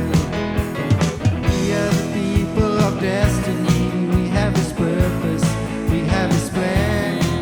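Church worship band playing a song, with a steady drum beat under sustained chords and a melody line.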